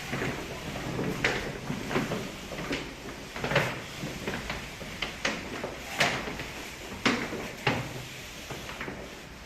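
Manual construction work with hand tools: a string of irregular knocks and scrapes, about one or two a second.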